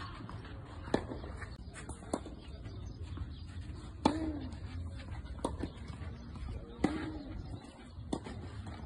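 Tennis balls struck by rackets on a clay court: a series of sharp hits, the two loudest about three seconds apart with fainter hits and ball bounces between them. A steady low rumble runs underneath.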